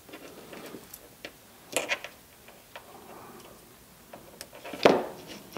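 Scattered small clicks and taps of hands handling a small cordless drill motor and fitting its wire connectors to the drill's switch, with a sharper knock near the end.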